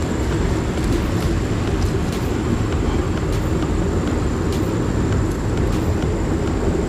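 Steady rushing of river rapids, a continuous loud low rumble of water, with a few faint clicks over it.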